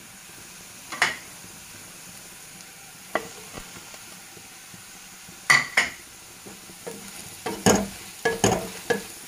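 Chopped onions frying in oil in a kadhai with a steady low sizzle, while spice powders are tipped in and a wooden spatula knocks and scrapes against the pan: a few single knocks, then busier stirring from about seven and a half seconds in.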